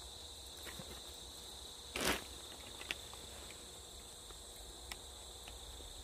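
Steady high chirring of crickets, with one short scuffing noise about two seconds in and a couple of faint clicks.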